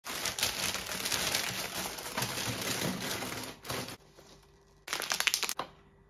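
Thin plastic bag of spinach leaves crinkling as it is handled for about four seconds, then a short second burst of plastic crackling near the end as packaging is handled.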